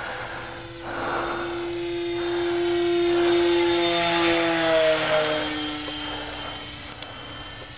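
Electric motor and propeller of an 800 mm RC Corsair model plane whining as it flies past close overhead: the tone grows louder, then drops in pitch and fades as the plane goes by.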